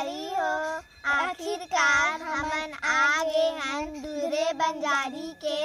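A high-pitched voice singing a melody, with long held notes that waver in pitch and short breaks between phrases.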